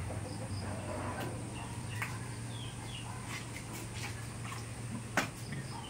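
Faint, short high chirps and squeaks scattered over a steady low hum, with one sharp click about five seconds in.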